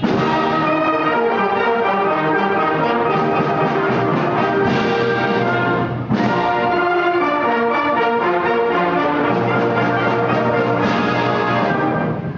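Concert band playing a clarinet concertino in full ensemble, brass to the fore. Loud fresh chords come in at the start, about six seconds in, and again near the end.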